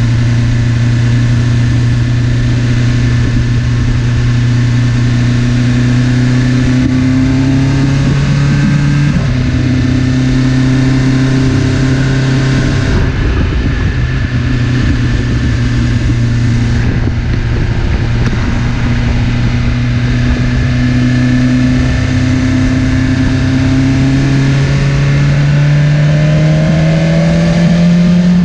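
BMW S1000RR's inline-four engine running under way at moderate revs, with wind rush. There is a gear change about nine seconds in, and the revs climb slowly near the end.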